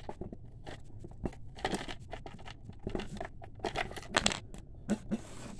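Irregular clicks, knocks and scraping of hard plastic as the back door of a toy doll van is tugged and worked by hand; the door is stuck and won't open.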